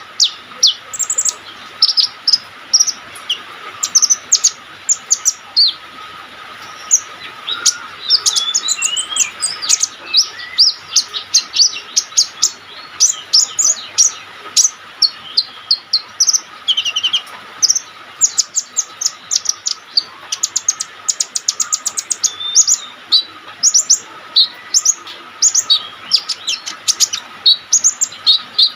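Olive-backed sunbird singing energetically: a continuous run of rapid, high-pitched chirps and short thin trills with hardly a pause, over a faint steady tone.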